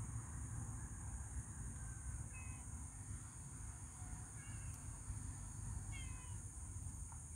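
Outdoor ambience: a steady high-pitched insect drone over a low rumble, with a few short, high calls about two and a half, four and a half and six seconds in.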